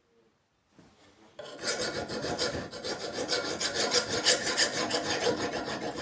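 Hand file scraping in quick repeated strokes, starting about a second and a half in after a near-quiet start.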